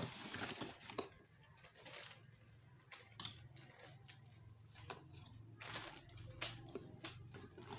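Handling noise: rustling cardboard and scattered small knocks and clicks as small electric motors with wire leads are lifted out of a cardboard box.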